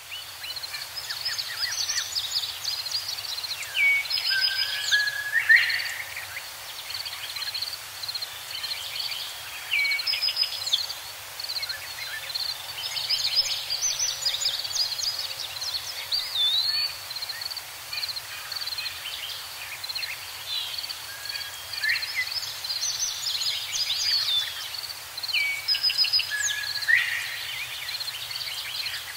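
Small birds chirping and singing: many short chirps, trills and quick rising and falling whistles overlapping throughout, over a low steady hum.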